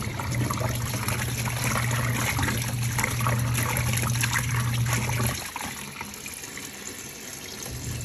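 Portable twin-tub washing machine running its wash: a steady motor hum with water churning in the tub. The motor stops about five and a half seconds in and starts again near the end.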